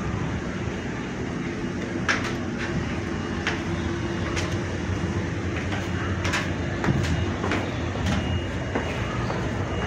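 Footsteps going down a ship's stairway, a sharp tread about once a second, over a steady low rumble.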